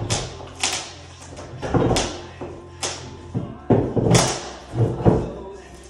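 Long-handled floor scraper jabbing under old luan underlayment with linoleum attached: a quick, irregular series of sharp strikes and scrapes, roughly one or two a second, as the thin plywood is pried loose from the subfloor.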